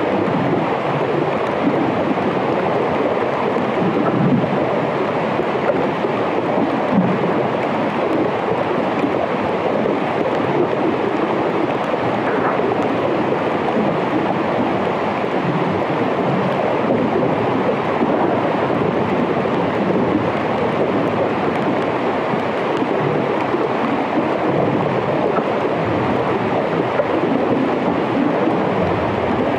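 Underwater hydrophone recording of melting glacier ice: a dense, steady, grainy noise with no pauses.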